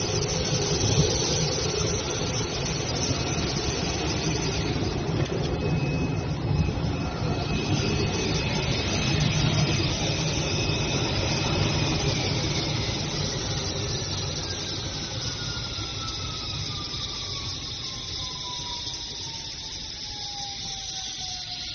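CNC router running under test: steady machine noise with a high whine. About halfway through the whine slides steadily down in pitch and the noise fades, as the spindle winds down.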